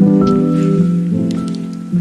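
Background music: a gentle instrumental track of sustained pitched notes that change in steps.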